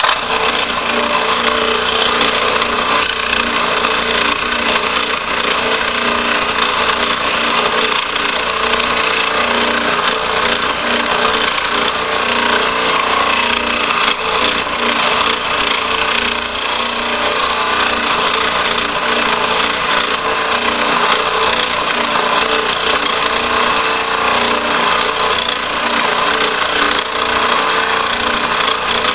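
Old benchtop scroll saw switched on and running, its reciprocating blade cutting thin hardboard: a loud, steady motor hum and rapid blade chatter. The saw is really old and a little loud.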